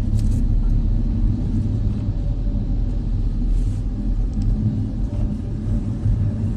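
Steady low road rumble and engine noise inside the cabin of a moving passenger van.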